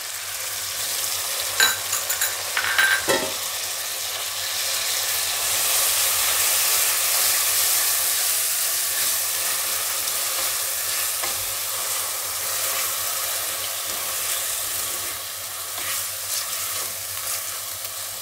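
Freshly grated onion sizzling as it fries in hot oil in a kadai, stirred with a silicone spatula. A few clicks of the spatula against the pan in the first few seconds, then a steady sizzle.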